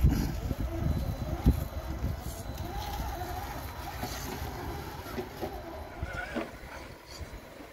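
Electric drive motor of a Redcat Ascent RC rock crawler whining up and down with the throttle as the truck climbs over rocks, with a sharp knock about one and a half seconds in.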